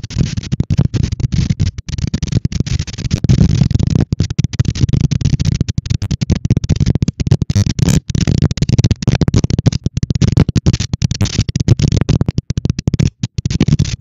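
Strong wind buffeting an outdoor nest-cam microphone: a loud, rough rumble with hiss over it, cutting out briefly again and again.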